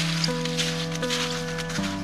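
Background music: held chords that change about every second, over a light, quick rustling beat.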